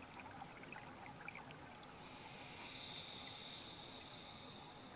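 Underwater sound of a scuba diver breathing through a regulator: a faint hiss that swells about two seconds in and fades near the end, with small scattered clicks.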